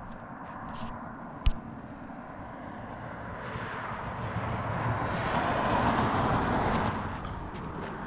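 A passing vehicle: its noise swells steadily, peaks about six seconds in, then fades away. A single sharp click comes about a second and a half in.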